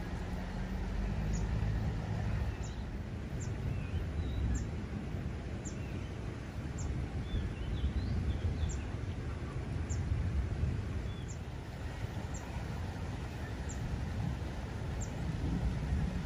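Outdoor ambience: a low, uneven rumble underneath, with a short high chirp repeating about once a second and a few bird calls in the middle.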